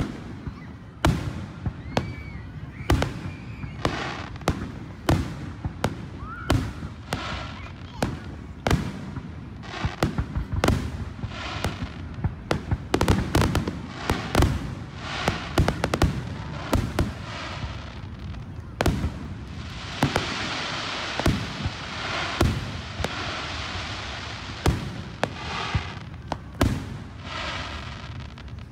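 Aerial firework shells bursting in quick succession, many sharp bangs often a second or less apart, with crackling hiss between them and a denser stretch of hiss about twenty seconds in.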